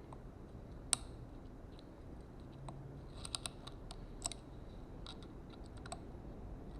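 Small metallic clicks of a lock pick working the pins inside an Abus 83AL/40 aluminium padlock under heavy tension. There is a sharp click about a second in, then a quick cluster of clicks around the middle and a few scattered ones after, as pins click while they set.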